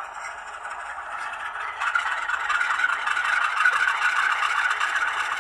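Sound decoder of a Rapido HO-scale Canadian National diesel locomotive playing the start-up and running of its diesel engine through the model's small speaker. The engine sound grows louder about two seconds in and then runs steadily.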